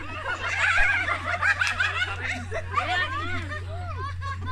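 A group of people laughing together, many voices overlapping in bursts of giggles and shrieks.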